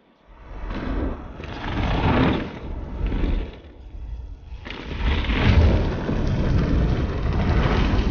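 Deep rumbling rush of a forest fire, swelling and fading in several waves, loudest a little past halfway.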